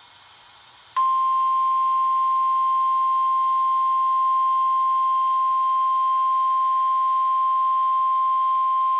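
NOAA Weather Radio 1050 Hz warning alert tone: a single steady beep that starts abruptly about a second in, after faint radio hiss, and holds unbroken. It signals that a warning message is about to be broadcast.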